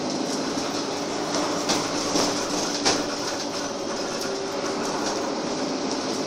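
Cabin noise of a Karosa B941E articulated diesel city bus on the move: steady engine and road noise, with a few short sharp rattles from the body about two to three seconds in.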